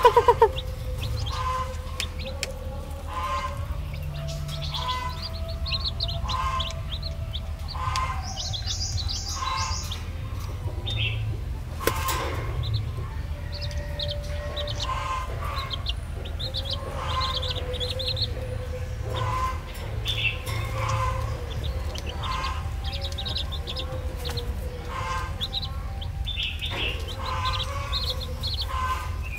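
Many baby chicks peeping: short high chirps, one after another, over a steady low hum.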